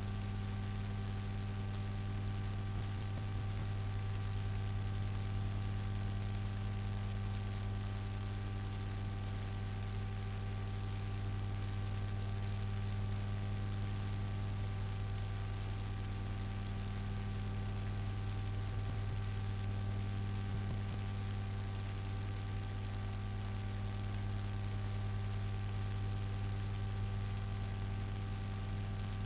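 Steady electrical mains hum with a ladder of overtones, over an even hiss, unchanging throughout.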